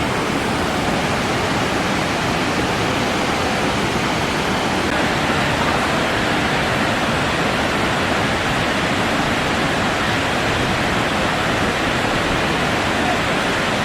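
Waterfall, a steady, unbroken rush of falling water.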